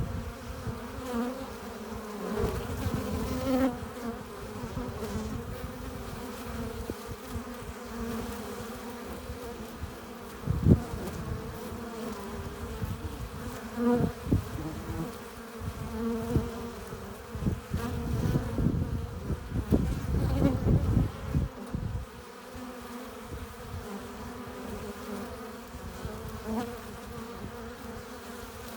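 Honeybees buzzing at a hive entrance: a dense, steady hum with single bees' buzzes wavering in pitch as they fly close. Irregular low rumbles and bumps come and go, with a sharp bump about eleven seconds in and the loudest stretch about two-thirds of the way through.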